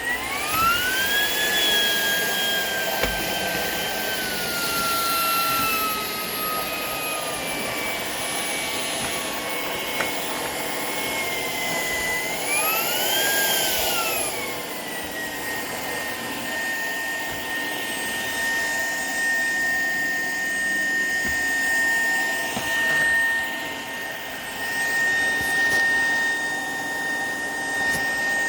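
Shark PowerDetect cordless vacuum running. Its motor whine climbs in pitch at the start and then sinks slowly, rises and falls again about halfway through, and holds one steady pitch for the rest.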